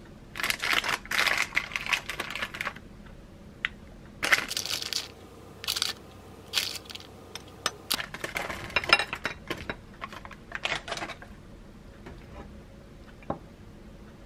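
Plastic snack pouch crinkling and tearing open, then crinkling again as small chocolate-coated balls are shaken out of it. Light clicks of the balls dropping onto the cake and the plate.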